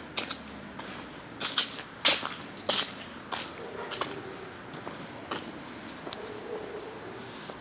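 Steady high-pitched chorus of insects, with irregular footsteps on asphalt and a few sharper knocks, the loudest between about one and a half and three seconds in.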